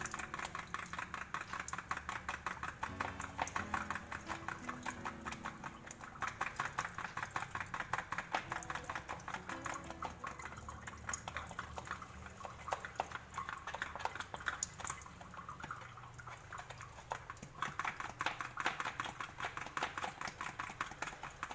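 Egg being beaten into seasoned flour in a plastic bowl: a utensil knocks and scrapes against the bowl in quick, steady strokes through the wet batter, quieter in the middle stretch and stronger again near the end.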